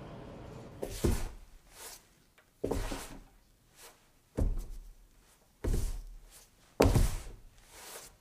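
A series of five heavy thuds, one every second and a half or so, each with a short ringing tail.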